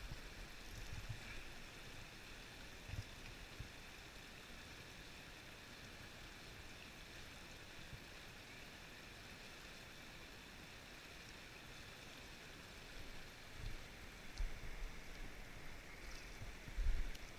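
Shallow river running over rocks: a steady rush of water, with a few short low thumps about three seconds in and several more near the end.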